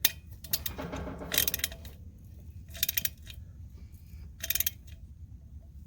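Several short bursts of metallic clicking and clinking as a wrench is fitted to and turned on the nuts of wedge anchor bolts set in concrete, tightening them.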